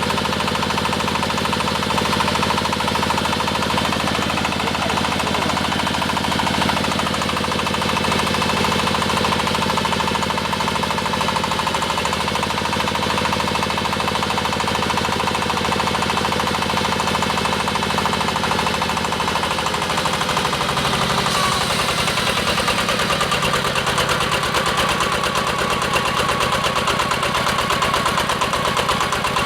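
The diesel engine of an AKL-150Y hydraulic water well drilling rig running steadily with a rapid knocking beat. About two-thirds through, its pitch drops and it settles to a lower, slower speed.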